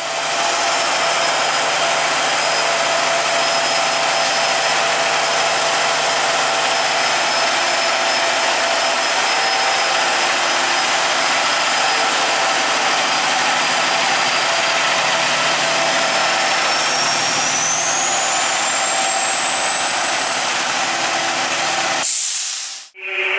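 Fire truck's diesel engine running steadily, a loud even mechanical noise with a thin high whine that climbs in pitch about two-thirds of the way through. The sound cuts off suddenly near the end.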